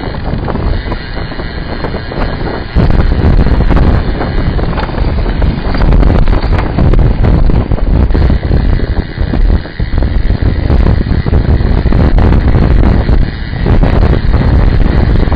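Wind buffeting the microphone of an action camera mounted on a moving road bike, a loud rumbling rush that jumps louder about three seconds in.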